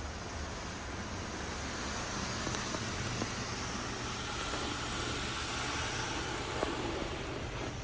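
Belanger Kondor automatic car wash spraying its spot-free rinse onto the car, heard from inside the car as a steady hiss of water over a low hum, swelling a little in the middle.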